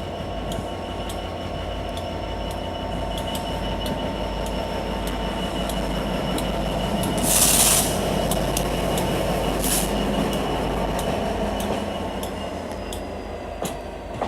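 A train rolling slowly on the rail, with a steady rumble, a thin squealing tone from the wheels and a regular clicking. There is a sharp hiss about seven seconds in and a shorter one near ten seconds.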